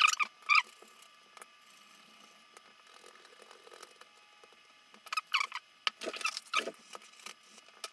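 Short squeaks and rubbing from handling and pressing in a replacement tablet battery and its adhesive: a few right at the start, quiet in between, then a cluster of squeaks from about five to seven seconds in.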